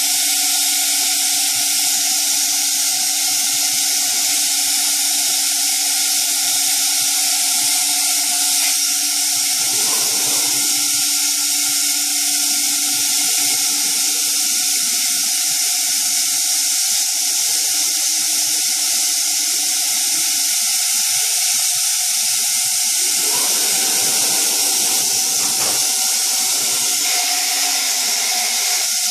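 Thermwood C67 five-axis CNC router running with no cut: a steady loud hiss with a low machine hum underneath. The hum shifts briefly about ten seconds in and again after about twenty-three seconds, as the head and tables move.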